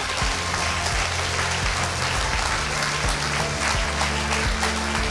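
Guests applauding, many hands clapping, with background music underneath.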